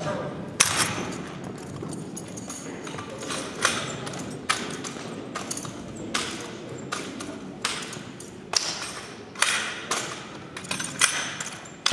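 A drill rifle being spun, tossed and caught in an exhibition drill routine: a string of sharp, irregular slaps and thuds as hands strike and catch the rifle, echoing in a large gym.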